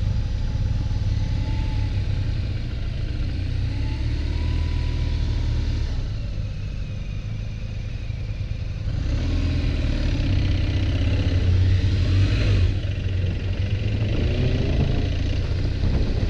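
Motorcycle engine running on the move with wind rushing past. It gets louder about halfway through, rising and falling in pitch as the bike accelerates and slows.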